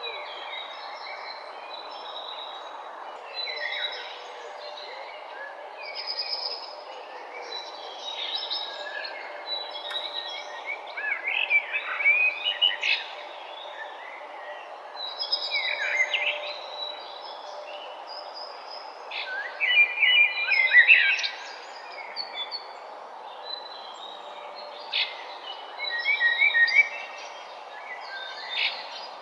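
Several songbirds chirping and singing in short overlapping phrases every few seconds, over a steady background noise. The loudest burst of calls comes about twenty seconds in.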